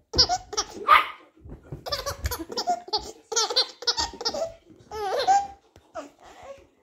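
Baby laughing in a run of short bursts, over and over, with brief pauses between them.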